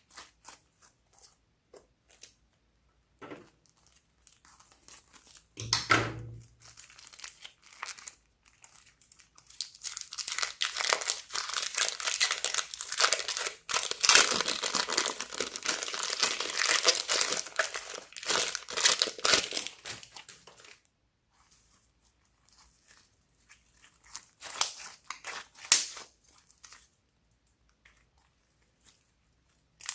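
Slime being squeezed, stretched and mixed by hand, making sticky crackling and popping sounds. They come in sparse clicks at first, with a single low thump about six seconds in, then run dense and busy for about ten seconds before thinning out again.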